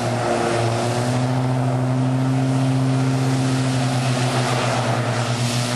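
Pilatus PC-9 turboprop engines running as the aircraft taxi, a steady propeller drone with a constant deep tone.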